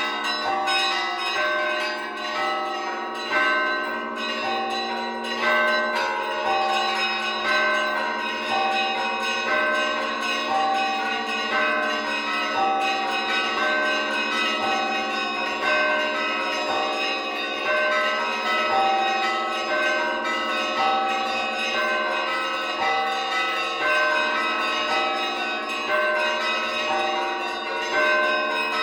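Russian Orthodox church bells rung in a festive feast-day peal. Small bells chime a quick figure that repeats over and over above the sustained hum of the larger bells, and a heavier stroke lands every two to three seconds.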